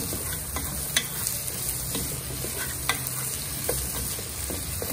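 Diced yellow potatoes frying in oil with onion, garlic and ground achiote, stirred with a plastic spoon. The steady sizzle is broken by a few sharp knocks and scrapes of the spoon against the pot, the loudest about a second in.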